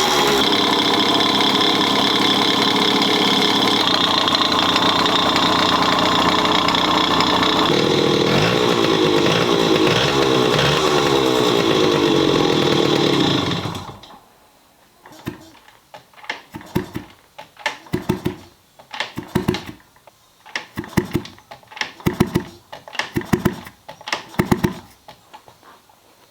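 Bored-up Yamaha Chappy 50's small two-stroke single running with a loud abnormal noise, which the owner suspects comes from the crankshaft or the cylinder head. The engine sound stops suddenly about halfway through, after which only short, quieter sounds come roughly once a second.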